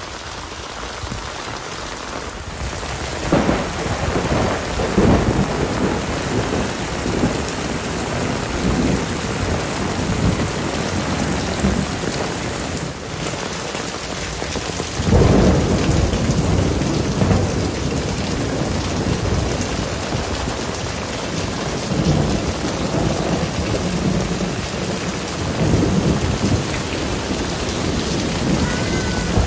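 Heavy rain pouring down in a steady hiss, with deep rumbles swelling up several times; the loudest comes about halfway through.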